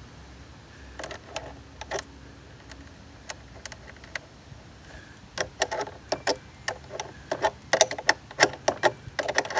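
Hand wrench turning the nut on a car battery's terminal clamp: sharp metal-on-metal clicks, a few in the first couple of seconds, then coming quickly and more loudly through the second half.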